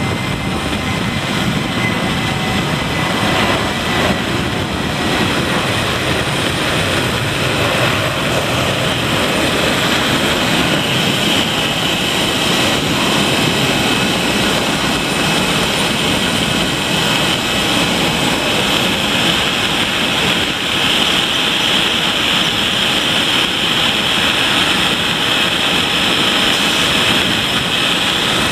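Loud, steady jet-engine noise from a Boeing 737 at takeoff thrust. From about ten seconds in, a strong high whine builds over the noise as the jet lifts off and climbs away.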